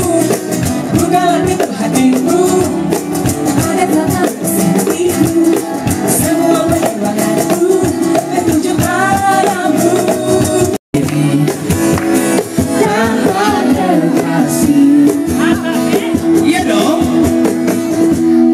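Music with a singing voice over instruments. The sound cuts out completely for an instant a little past halfway, then the music goes on.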